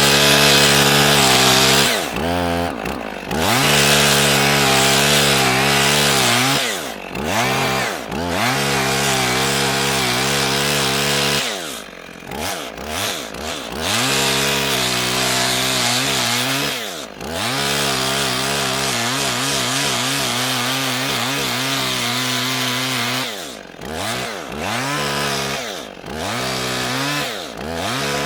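Two-stroke petrol chainsaw ripping a pine log lengthwise into boards, running at high revs under load. The engine speed drops and picks back up several times.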